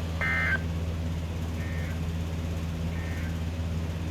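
Emergency Alert System end-of-message (EOM) data bursts: three short warbling digital tones, just under a second and a half apart, the first loudest, marking the end of the alert. A steady low hum runs underneath.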